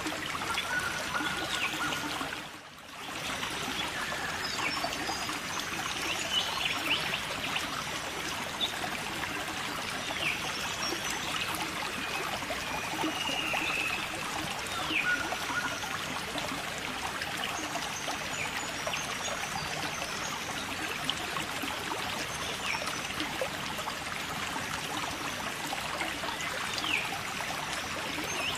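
Continuous trickling, splashing water, with a brief dip in level about three seconds in.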